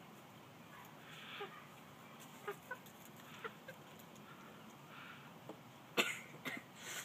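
Broody hen giving a few short clucks as she shifts and settles in a straw-lined nest box. Straw rustles under her, and there is a short sharp noise about six seconds in.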